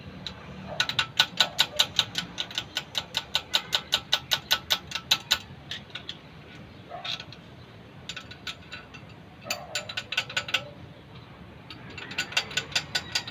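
Ratchet wrench clicking in three quick runs of about seven clicks a second, the longest lasting about four seconds.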